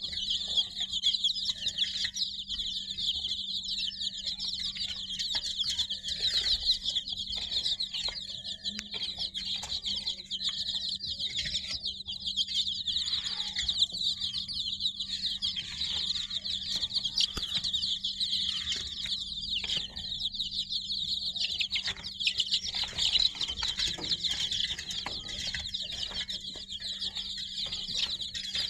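Many baby chicks peeping together, a dense, continuous chorus of short high-pitched peeps, with a faint steady hum underneath.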